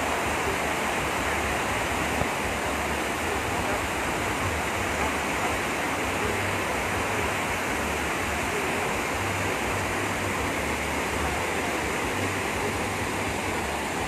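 Rushing water running strongly and steadily, a stream swollen after heavy rain.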